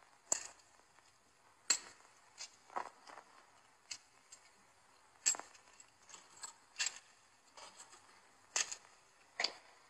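Metal coins clinking as they are gathered from a table into a small leather drawstring pouch: a dozen or so sharp, irregular clinks.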